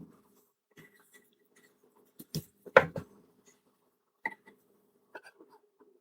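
Handling noise while a padlock and its setup are repositioned: a few separate light clicks and knocks, the loudest a sharp knock about three seconds in, over a faint steady hum.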